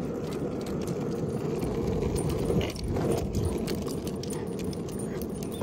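Small metal hardware on a dog's harness and leash jingling as the dog trots along on the leash, with many light clinks over a steady low noise.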